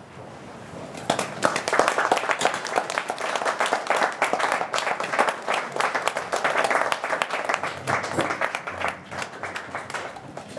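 Audience applauding, starting about a second in, dense and steady, then thinning out near the end.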